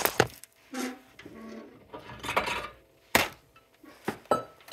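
Handling noise close to the phone: a series of short knocks and clatters of objects being moved about, the sharpest a little after three seconds in.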